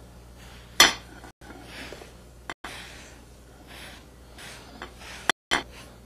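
Small handling knocks at a wooden cutting board: one sharp click about a second in and a few lighter clicks, over a low steady hum.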